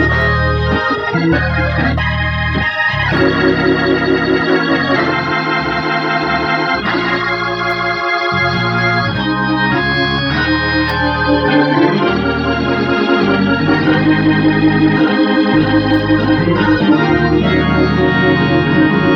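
Hammond organ playing sustained, changing chords through a Leslie 22H rotating-speaker cabinet driven by a freshly refurbished Leslie 147 amplifier, the notes wavering with the speaker's rotation. It is a test of the rebuilt amp, which comes out sounding clean and full.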